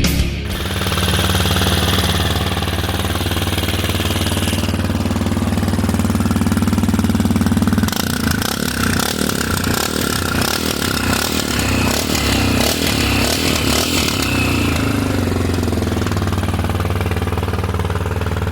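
Suzuki Freewind 650's single-cylinder engine running through an aftermarket Kimoto Superbike exhaust with a carbon-fibre end cap, mostly at a steady idle, with a rougher, more uneven stretch in the middle.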